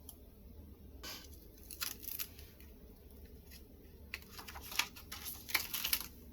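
Packaging rustling as a stamp set is handled: short scraping rustles about a second in and again around two seconds, then a denser cluster from about four to six seconds.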